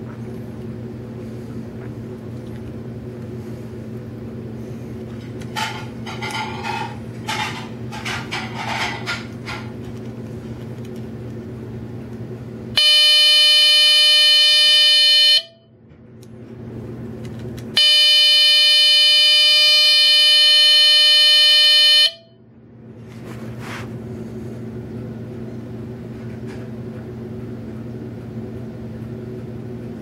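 An electronic burglar alarm control kit sounding its alarm through a small loudspeaker: two loud, steady, buzzy tones, the first about two and a half seconds long and the second about four, each with a slight upward blip just as it cuts off. Before them come scattered rustles and clicks of the board and wires being handled, over a steady low hum.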